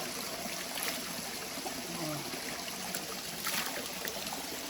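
Shallow rocky stream trickling and flowing, a steady rush of water, with faint voices under it.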